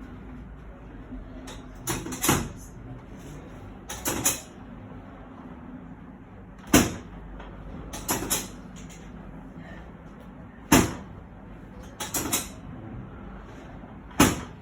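A series of sharp percussive hits, some single and some in quick pairs, about every two seconds, over a steady low hum.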